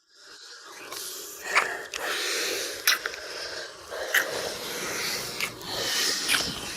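A person breathing heavily in several swells, with a few sharp clicks in between.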